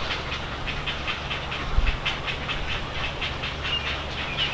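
Great blue heron chicks at the nest giving rapid, rhythmic clicking calls, several a second, over a steady low hum, with one brief low thump about two seconds in.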